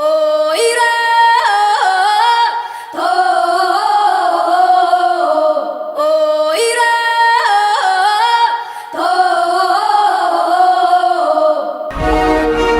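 Music track: a sung melodic phrase played twice, about six seconds each, with a fuller accompaniment and bass coming in near the end.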